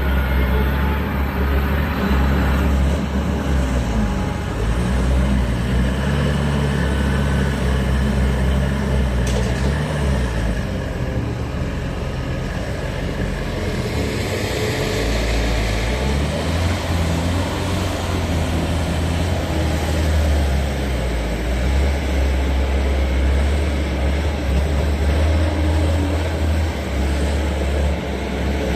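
Skid steer loader's engine running continuously, its pitch shifting down and up a few times as engine speed changes.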